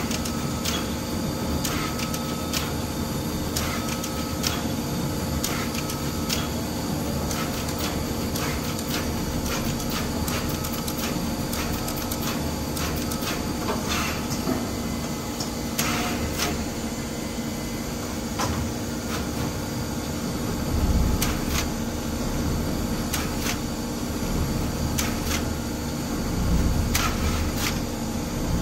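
SMT pick-and-place machine running: a steady mechanical hum with frequent sharp clicks as the placement head works, a few short high tones in the first several seconds, and two low rumbling swells later on.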